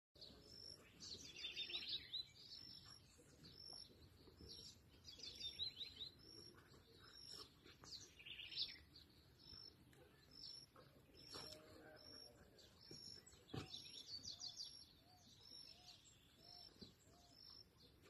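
Faint wild birdsong: a short high chirp repeated steadily, with several louder, rapid twittering phrases now and then.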